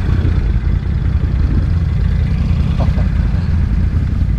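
ATV engine running at a steady idle, a low rumble.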